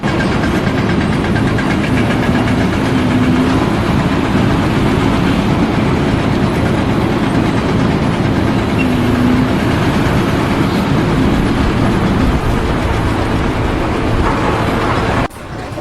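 Heavy vehicle engine running loud and steady under load, with a faint wavering tone over a dense rumble; it cuts off abruptly near the end.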